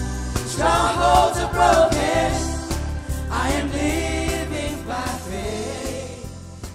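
Church worship team singing a gospel praise song together, with keyboard accompaniment and a steady bass underneath. The sound gradually fades down toward the end.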